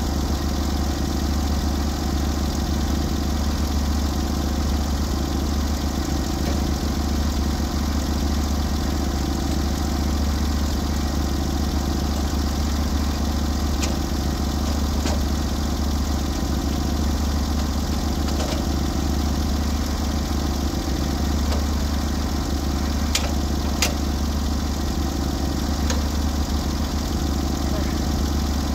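Norwood HD36v2 portable bandsaw mill's gas engine idling steadily, with a few light knocks about halfway and again near the end.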